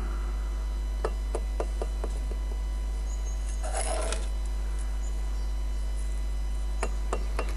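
Faint clicks and taps of a steel trowel and cut clay bricks being set in mortar, with a short scrape about four seconds in, over a steady low hum.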